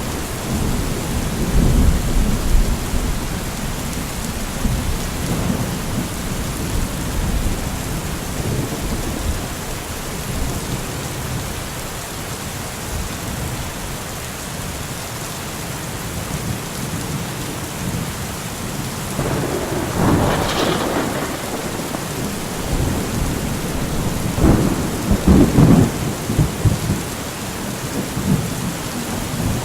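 Steady rain falling in a thunderstorm, with low rolling thunder rumbling under it at the start and two louder thunder rolls, about two-thirds of the way through and near the end, the second the louder.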